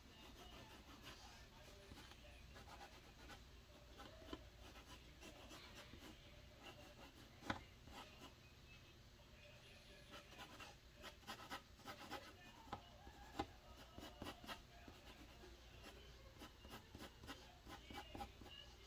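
Faint drawing sounds: a drawing tool scratching and tapping on a drawing surface in short strokes. The strokes grow busier in the second half, with two sharper clicks, one in the middle and one a little later.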